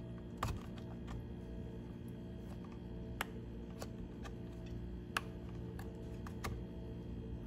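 Scattered light clicks and taps from hands handling the leaf blower's plastic parts, over a low steady hum.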